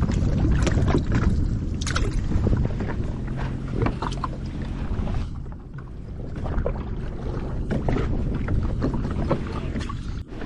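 Wind on the microphone and water against a jet ski's hull on the open sea, with a low steady engine hum underneath and scattered knocks and splashes.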